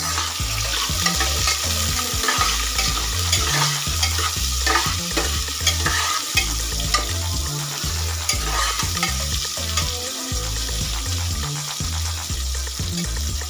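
Sliced onions sizzling as they fry in ghee in a non-stick pressure cooker, with a spatula stirring and scraping them around the pot in irregular strokes.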